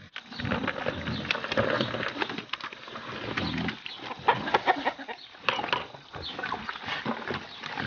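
Pigs eating avocados from a trough: a busy run of wet chomping and crunching clicks, with low grunts now and then.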